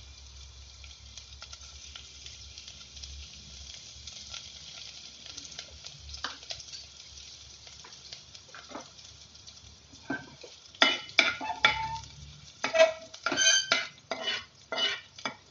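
Chopped garlic sizzling lightly in hot cooking oil in a metal saucepan. From about ten seconds in, a utensil stirs it, clinking and scraping against the sides of the pan.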